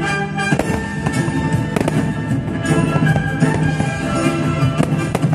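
Aerial fireworks shells bursting in many overlapping bangs in quick succession, with music playing along with them.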